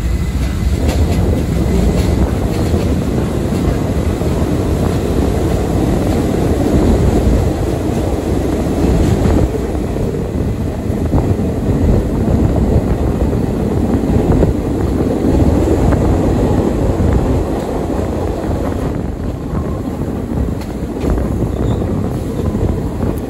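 NYC Subway R68 train running along the track, heard from inside at the front of the car: a steady, loud rumble of wheels on rails and running gear, with a few faint clicks.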